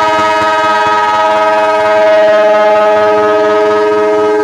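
Broad-gauge locomotive's air horn sounding one long, loud, steady blast, several tones held together as a chord.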